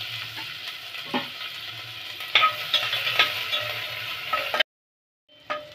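Chopped onions sizzling in hot oil in a pressure cooker, with a spoon knocking and scraping against the pot a few times as they are stirred. The sizzle cuts off suddenly about four and a half seconds in, and a couple of clicks follow.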